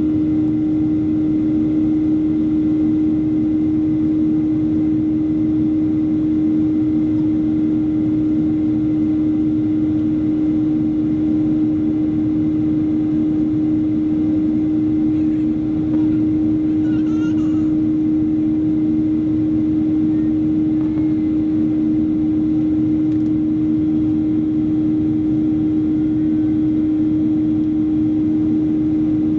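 Cabin noise of a Boeing 737-400 in the climb: the steady drone of its CFM56-3 turbofan engines and the airflow, with a strong, unchanging hum over a low rumble.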